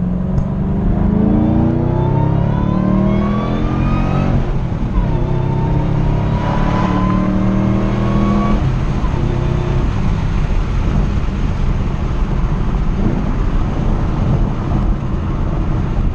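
Supercharged V8 of a Roush BlackJack Mustang, straight-piped with the mufflers removed and the stock catalytic converters kept, accelerating hard: the exhaust note rises through one gear, shifts about four and a half seconds in, and rises again through the next, with a supercharger whine climbing along with it. About eight and a half seconds in the driver lifts off and it settles to a steady, rougher drone.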